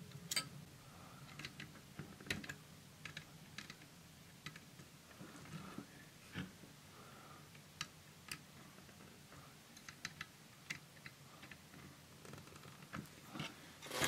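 Faint, irregular small clicks and ticks of the metal contact leaves of a lever switch being bent and straightened by hand, with a few louder handling knocks near the end.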